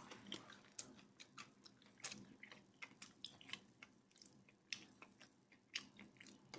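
Faint, irregular small clicks and crackles, several a second, with a sharper click about two seconds in and a few louder ones near the end.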